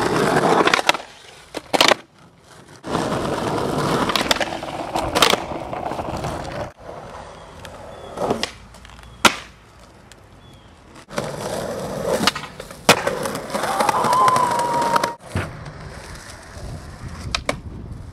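Skateboard wheels rolling over rough concrete in several runs, broken by sharp clacks of the board popping and landing.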